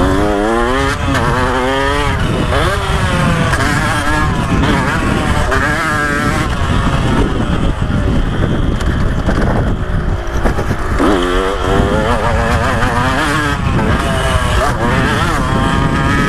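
KTM 125 SX single-cylinder two-stroke dirt bike engine revving hard under load, its pitch climbing and dropping over and over as it is ridden on a motocross track.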